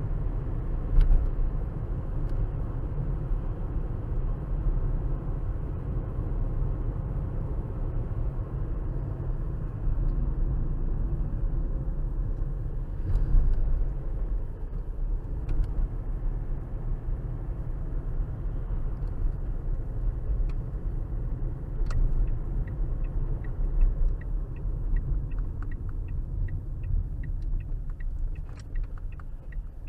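Car driving, picked up by a windscreen dashcam's microphone inside the cabin: a steady low road and engine rumble with a few faint knocks. About 22 seconds in, a regular light ticking starts, about two a second: the turn-signal indicator.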